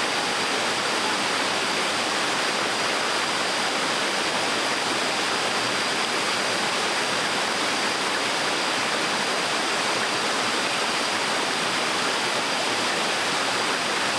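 Gentle waterfall on a stream: water pouring and splashing in a steady, even rush.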